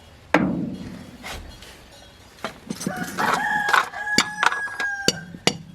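A loud knock just after the start that rings out, then a rooster crows from about three seconds in, with several sharp clicks and clinks around and after the crow.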